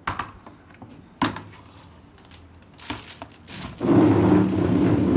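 Plastic toy pieces knocking a few times, then a loud stretch of plastic packaging crinkling and rustling near the end.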